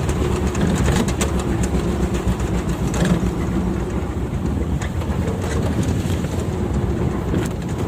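Belarus MTZ tractor's diesel engine running steadily, with the trailer rattling and knocking as it jolts over a rough, rutted track.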